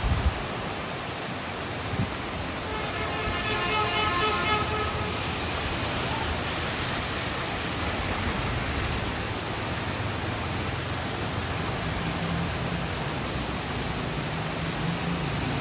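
Heavy rain pouring steadily on trees and a street, with a brief thump at the start and another about two seconds in. A faint drawn-out tone sounds about three seconds in, and a vehicle's low engine rumble on the wet road grows in the second half.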